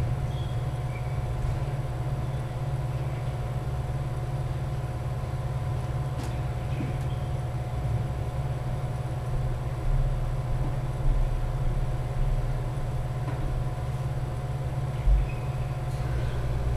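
Steady low hum of a gym's background noise, with a few faint short squeaks and a couple of faint taps from badminton play on a wooden court.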